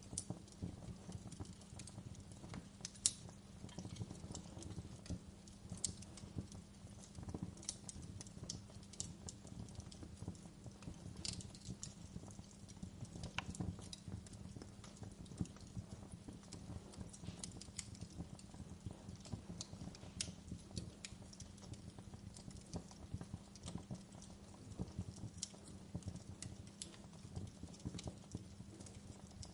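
Wood fire burning in a fireplace: a steady low rumble of flames with irregular crackles and pops, one sharper pop about three seconds in.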